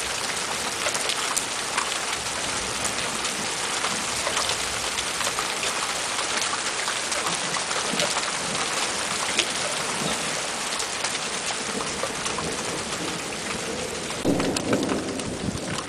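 Steady heavy rain falling, with many drops pattering close by. A short louder rumble comes about a second before the end.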